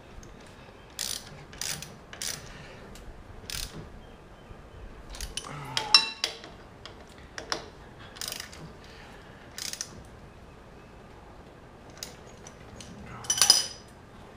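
Hand ratchet wrench clicking in short, irregular runs while the bolts of a Wilwood brake caliper on a Legend car's front spindle are tightened down, with a louder clatter about six seconds in and again near the end.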